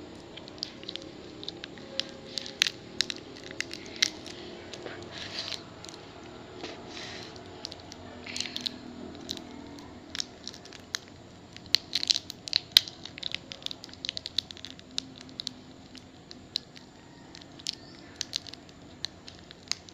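Plastic candy wrapper crinkling and crackling in the hands as a wrapped sweet is opened, in irregular sharp crackles with a busier, louder flurry about twelve seconds in.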